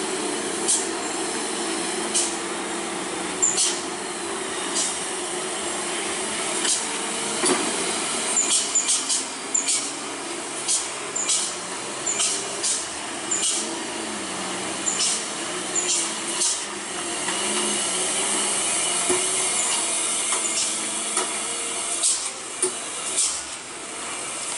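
Loaded heavy trucks climbing a steep hairpin, diesel engines running under load, with frequent short, sharp air-brake hisses scattered through.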